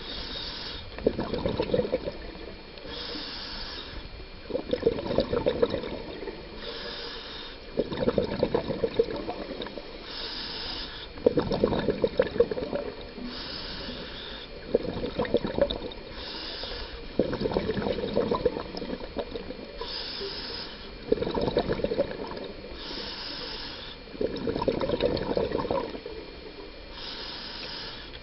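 Scuba diver breathing through a regulator underwater. Each breath is a short hiss on the inhale, followed by a longer bubbling rush of exhaled bubbles, repeating about every three and a half seconds.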